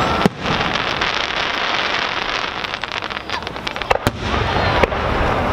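Aerial firework shells bursting at a fireworks display: several sharp bangs over a few seconds, over a continuous noisy rush between them.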